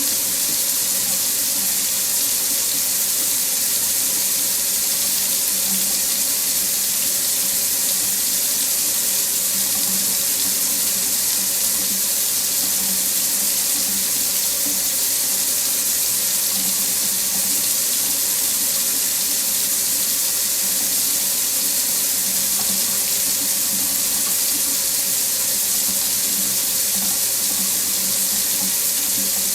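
Water tap running steadily into a sink, an unbroken hiss of falling water.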